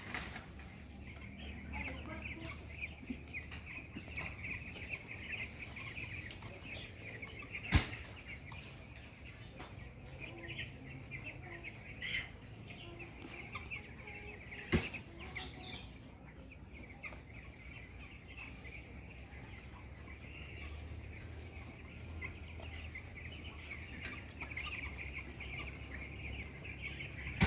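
A flock of fifteen-day-old chicks peeping continuously, with a few sharp knocks; the loudest come about eight and fifteen seconds in.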